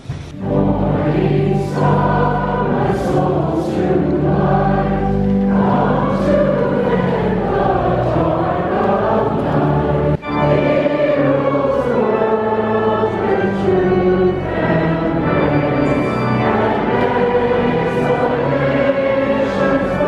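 A congregation singing a hymn together, with a short break about halfway through where the singing cuts off and starts again.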